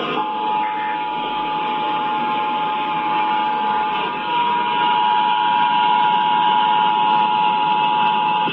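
Emergency Alert System attention signal: a steady two-tone alert (853 and 960 Hz sounded together) heard over a constant hiss, a little louder about halfway through.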